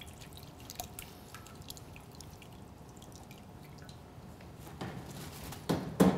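Soup stock dripping from a conical metal strainer into a stockpot, faint irregular drips. Near the end, a few sharp metal knocks as the strainer is lifted and set down.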